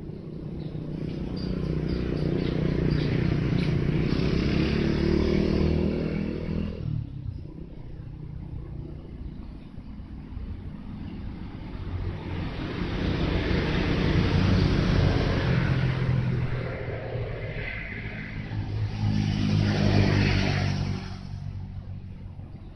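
Motor vehicles driving past one after another, three passes, each engine growing louder and then fading away.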